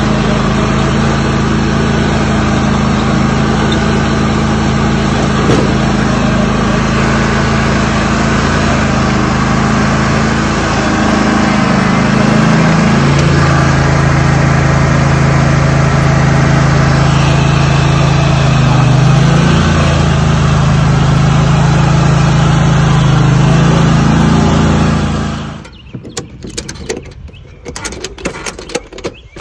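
Riding lawn mower's small engine running steadily as the mower is driven, its pitch dropping and its level rising a little about halfway through; the engine shuts off abruptly near the end. A quick series of ratchet-strap clicks follows as the mower is strapped down.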